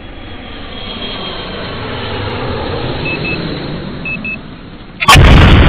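Channel intro sound effect: a rushing noise that slowly grows louder, broken by two pairs of short high beeps, then a sudden loud hit about five seconds in.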